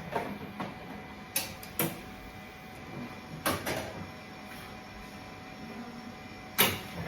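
Mimaki CJV150 wide-format inkjet printer with its print head carriage returning to the capping station, a steady low machine hum broken by several sharp clicks and knocks, the loudest near the end.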